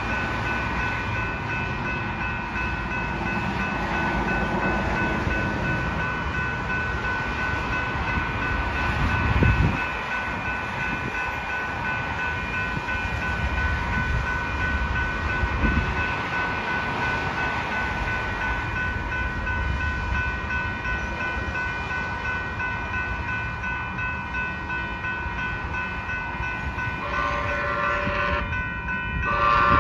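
Grade-crossing warning bell ringing steadily over a low rumble, with two brief low thuds about ten and sixteen seconds in. Near the end an approaching Siemens S70 light-rail train sounds its horn.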